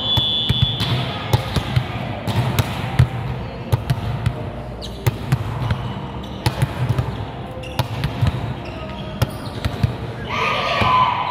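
Volleyball rally on a hard indoor court: repeated sharp slaps of the ball off players' hands and arms, and thuds of it and of feet on the floor, echoing in the hall. There is a brief high squeak at the start and players' voices calling out near the end.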